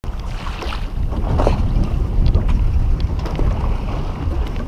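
Wind buffeting the microphone in a steady low rumble, with choppy seawater splashing against a small boat's hull.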